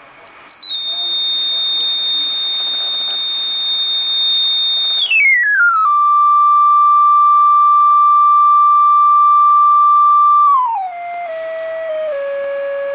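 A pure sine-wave test tone from a smartphone signal-generator app, played through the phone's small speaker. It slides down from a very high whistle to a steady high tone, glides down again about five seconds in to a steady middle tone, then steps down to a lower tone near the end as the frequency slider is moved. The lower tones carry faint overtones.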